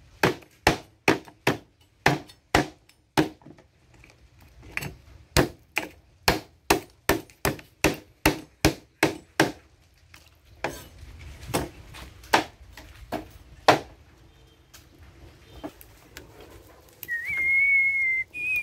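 Large knife chopping dried fish on a round wooden chopping block: steady strikes about three a second for nearly ten seconds, then a few scattered chops. Near the end a high whistle starts, shifting up and down in pitch.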